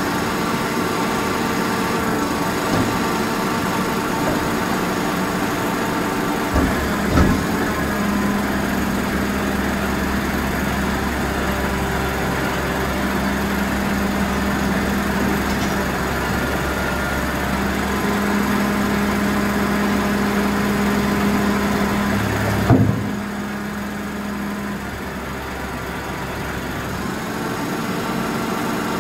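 Garbage compactor truck's diesel engine running at idle, with a deeper, louder hum and a steady tone coming in about seven seconds in. A sharp bang comes about twenty-three seconds in, and the hum then drops back. A couple of knocks come around seven seconds in as the bins are handled at the hopper.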